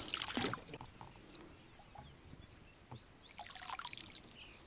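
Faint water splashing and trickling as someone moves slowly through shallow water, with a short splash right at the start. Small birds chirp faintly near the end.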